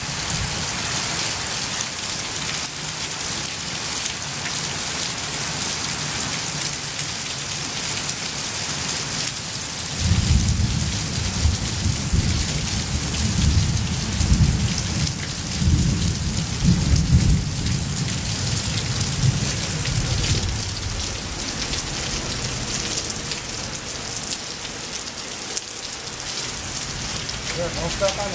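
Heavy rain pouring steadily. About ten seconds in, a long roll of thunder breaks in suddenly and rumbles in waves for some ten seconds before fading back under the rain.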